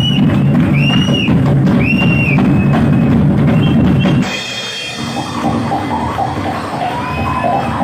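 Drum kit played hard in a live drum solo, with heavy bass-drum and snare hits. The drumming cuts off suddenly about four seconds in, leaving quieter sound after it.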